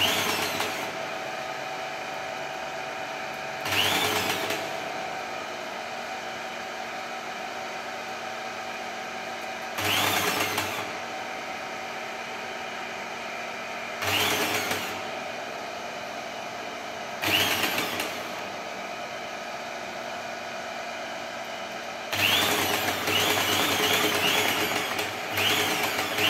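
Hand-held electric high-pressure injection pump starting and stopping seven times in short runs of about a second, with one longer run of about three seconds near the end, each start rising in pitch as the motor spins up, over a steady hum. It is pumping sealant through a hose into a leak in a concrete water tank.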